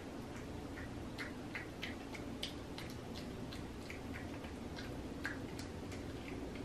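A cat chewing a chewy homemade tuna-and-gelatin gummy treat: faint, irregular clicks of its mouth, a few a second, over a low steady hum.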